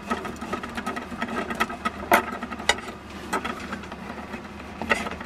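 A kitchen knife sawing through a crusty sourdough loaf: irregular rasping strokes and sharper knocks as the blade goes through the crust and meets the board, over a steady hum.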